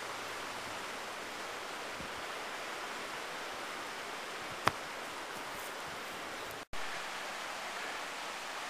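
Steady rush of a fast mountain river, with a single sharp knock a little past halfway as the thrown stone lands. The sound drops out for an instant near the end.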